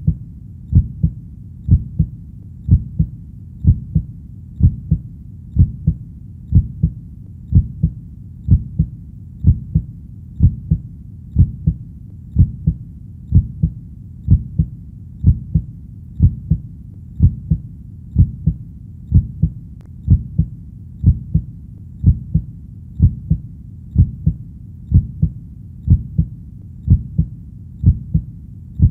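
Human heartbeat: a steady lub-dub, two low beats in quick succession repeating about once a second.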